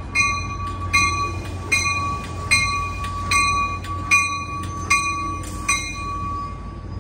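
An Amtrak Capitol Corridor train's bell ringing at a steady pace, a little more than one ring a second, as the train stands at the station, over a low engine rumble. The ringing stops near the end.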